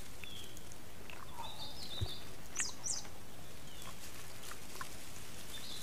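Steady outdoor ambience with a few short, high chirps and squeaks scattered through it. The clearest are two quick downward chirps near the middle.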